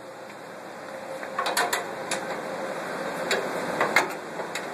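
Irregular metallic clicks and clanks of a wrench working a locking bolt on the base of a Simplex 35mm cinema projector. There are about seven or eight of them, starting about a second and a half in.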